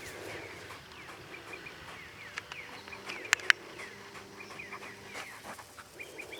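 Small birds chirping and singing, with many short, quick notes. Two sharp clicks sound close together about halfway through.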